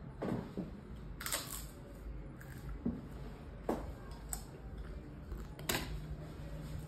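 Glasses and bottles being handled on a wooden table: a few soft, short clicks and knocks about a second apart, with a brief hissing noise about a second in.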